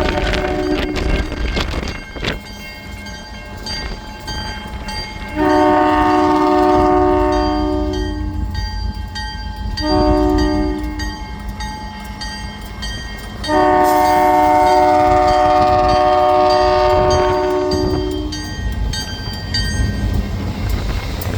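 Train horn sounding a several-note chord in the grade-crossing pattern: the end of one blast, then a long blast, a short one and a final long one, over the low rumble of the passing train.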